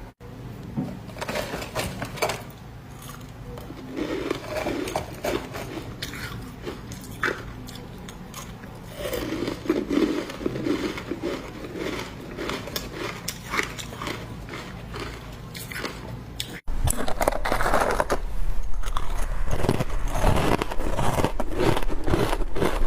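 Ice being bitten and chewed close to the microphone: a run of irregular hard crunches and cracks with wet chewing between them. About two-thirds of the way in the sound cuts abruptly to a louder, denser stretch of crunching.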